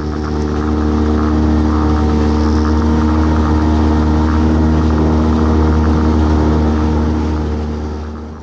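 Small boat's engine running at steady revs, a constant low drone with an even pitch. It fades in over about the first second and fades out near the end.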